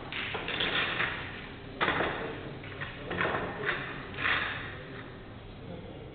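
Pool balls clacking together as they are gathered and packed into a diamond rack for nine-ball, with one sharp knock about two seconds in. This is followed by short scraping shuffles of the rack on the cloth as it is pressed into place.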